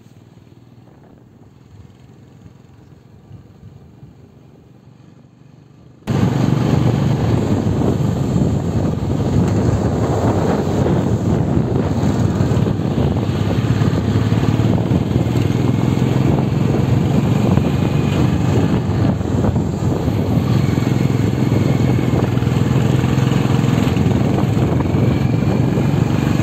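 Faint low background noise, then about six seconds in an abrupt cut to the loud, steady rumble of a moving vehicle's engine and tyres on a mountain road.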